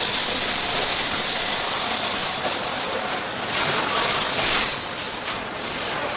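Wire mesh welding machine running, a loud high hiss that swells and fades, strongest over the first two and a half seconds and again about four to five seconds in.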